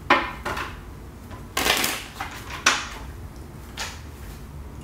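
Deck of tarot cards being shuffled by hand on a tabletop: four short, sharp card sounds about a second apart.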